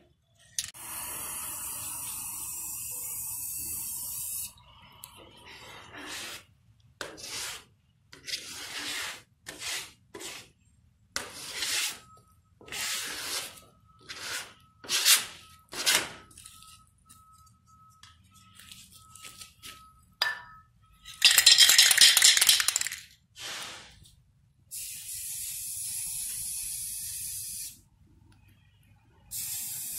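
Aerosol spray-paint can hissing against a canvas in bursts. There are long sprays of a few seconds near the start, about three-quarters through (the loudest) and near the end, with many short quick sprays in between.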